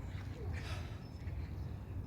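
A person breathing out hard with the effort of a weighted pull-up, one breathy exhale about half a second in, over a steady low rumble.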